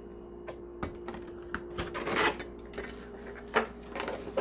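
Stiff clear plastic toy packaging crinkling and clicking as it is handled and pulled apart: scattered sharp clicks, with a longer crinkle about two seconds in.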